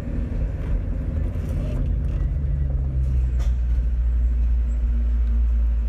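2001 Ford Mustang's engine running through its new aftermarket exhaust, a steady low drone as the car moves slowly.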